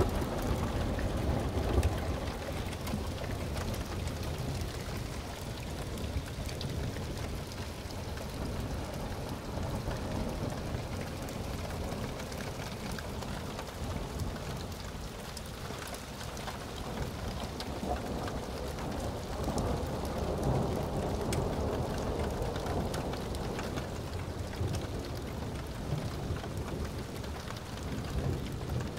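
Rain falling steadily in a thunderstorm, with thunder rumbling low underneath and swelling at times.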